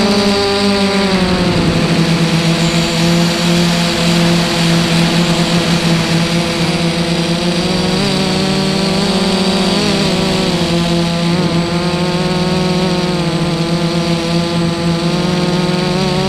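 FPV multirotor drone's electric motors and propellers buzzing steadily, heard up close from on board, the pitch dipping about a second in and wavering as the throttle changes.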